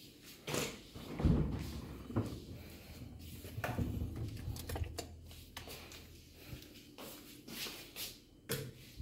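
Refrigerator being opened and a carton of oat milk taken off its shelf and handled, giving a run of small clicks and knocks with a low rumble in the first half. Near the end comes a sharper knock.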